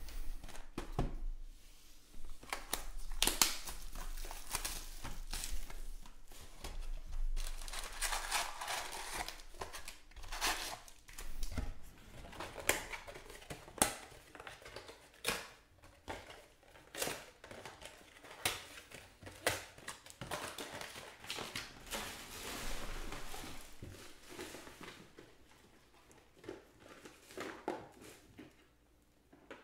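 A cardboard trading-card box being opened and its foil-wrapped packs pulled out and stacked: tearing cardboard, crinkling pack wrappers and sharp clicks as packs are set down. The handling dies down over the last few seconds.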